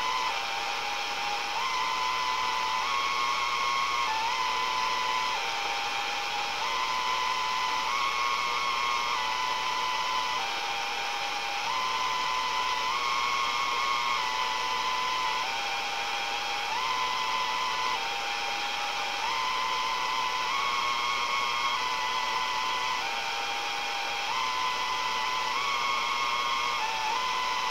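Old radio receiver's speaker giving a steady static hiss with a received tone that steps up and down among a few pitches, each held about a second, in a pattern that keeps repeating.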